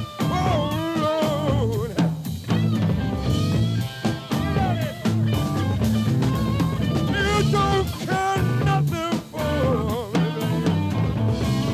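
A live blues-rock band playing: a wavering, bending lead melody over bass and drums.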